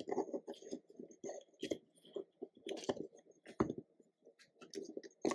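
Small plastic toy construction vehicles being handled and pushed over Play-Doh: irregular small knocks, clicks and rattles with soft handling noise.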